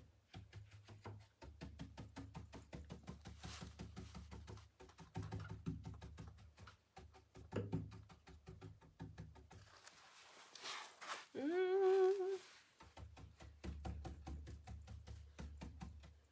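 Round paint brush scrubbing on a painted wooden panel in quick, rapid strokes while wet paint is blended. About eleven seconds in, a person gives a short hummed note that rises and then holds for about a second.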